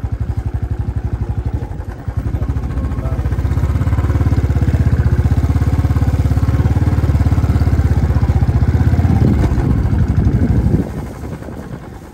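Royal Enfield Bullet's single-cylinder engine running under way with a fast, even pulse. It opens up about two seconds in, holds steady, and eases off near the end.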